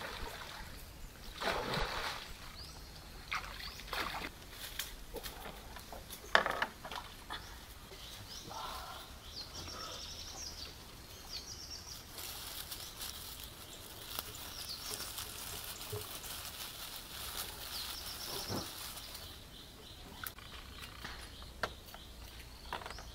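Outdoor river-bank sounds: water splashing around a bamboo punting pole and raft, birds chirping, and dry grass rustling as a hand works through a nest. Several sudden noises stand out, the loudest about six seconds in.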